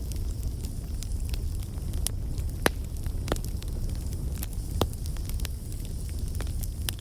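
Campfire burning with a steady low rumble and scattered sharp crackles and pops, the loudest snaps about two and a half and five seconds in.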